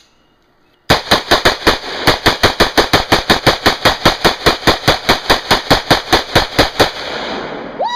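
A long burst of automatic gunfire: rapid, evenly spaced shots about five a second, starting about a second in and lasting some six seconds, then trailing off into a fading hiss.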